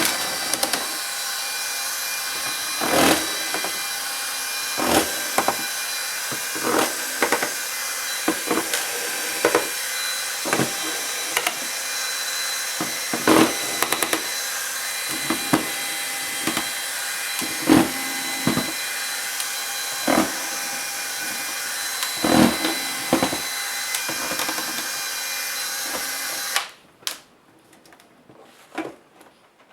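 A small motor whirs steadily while laptop parts are handled, with frequent sharp clicks and knocks; the whir cuts off suddenly about 27 seconds in, leaving a few quieter clicks.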